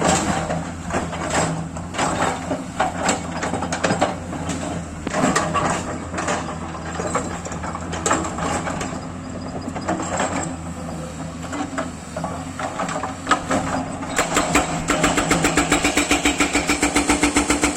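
Kato excavator's diesel engine running steadily under repeated sharp knocks and clunks. About fourteen seconds in, a fast, even engine pulse of about six beats a second sets in.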